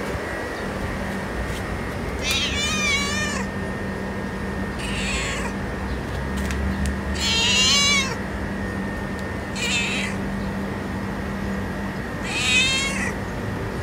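A stray cat meowing five times, high-pitched calls a few seconds apart, each wavering in pitch.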